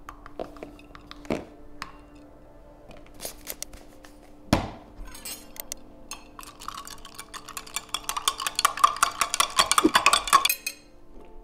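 A long metal spoon stirring powder into water in a glass mason jar, clinking rapidly against the glass, growing louder and stopping suddenly near the end. Earlier come a few light taps of the scoop and a single sharp knock about four and a half seconds in.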